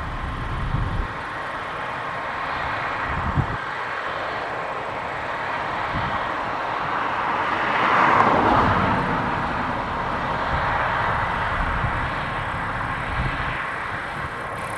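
Case IH Axial Flow 8230 combine running while harvesting barley: a steady mechanical rush that swells to its loudest about eight seconds in, then eases off.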